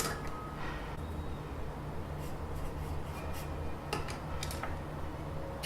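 Writing on paper by hand: a few faint short scratchy strokes and light ticks over a steady low room hum.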